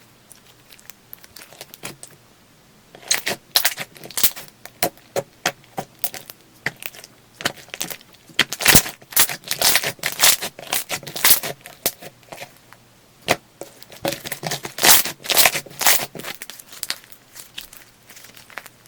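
Slime being squeezed and stretched by hand, giving off irregular sticky clicks and crackles that come in dense clusters after a quiet start.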